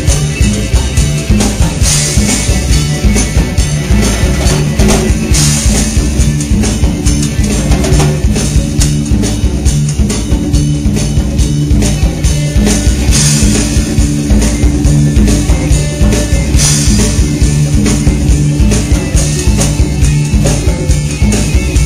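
Live rock band playing an instrumental passage: a drum kit keeps a steady beat under guitar, with cymbal crashes at intervals.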